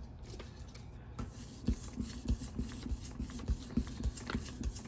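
Hand rubbing and burnishing the back of paper laid on a gelli plate to pull a print: irregular scratchy rubbing strokes starting about a second in.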